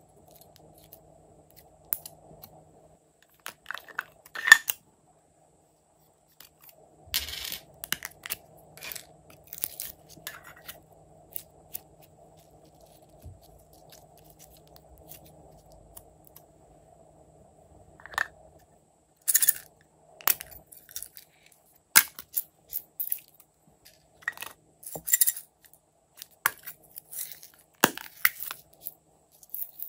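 Hands handling slime and small plastic slime containers: scattered sharp clicks and crackles, some in short clusters, as slime is squeezed out of its packs and a container lid is worked open.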